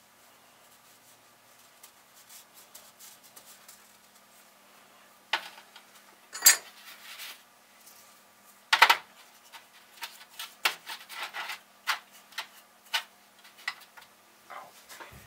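Small metal parts clinking and clattering as they are handled and set down. The knocks are scattered and irregular, starting about five seconds in, with the loudest clatters around six and a half and nine seconds in.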